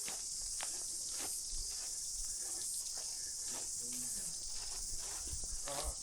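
Steady high-pitched insect chorus in the bush, with the light crunch of a hiker's footsteps on a gravel track about twice a second.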